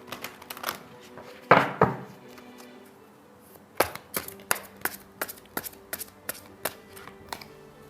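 Tarot cards being shuffled by hand: a few soft card sounds, then a run of about a dozen sharp card slaps, roughly three a second, over faint background music.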